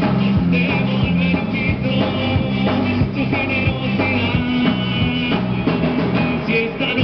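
A live rock band with horns playing: electric guitar, bass, trombone and other brass over a steady drum beat, with a singer on a microphone.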